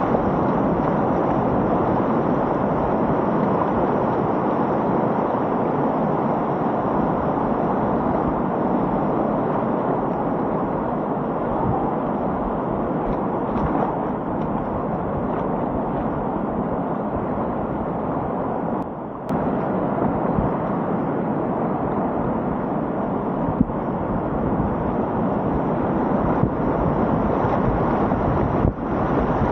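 Loud, steady rushing of a whitewater river in high flood, with a short dip in level about two-thirds of the way through.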